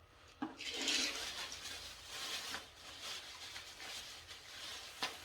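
PVC cement being brushed onto a PVC drain pipe: an uneven scratchy swabbing noise, with a click about half a second in and another near the end.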